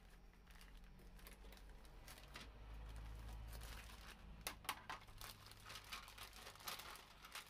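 Faint crinkling and crackling of a thin clear plastic bag as a plastic model kit sprue is slid out of it, with a few sharper crackles about four and a half seconds in and near the end.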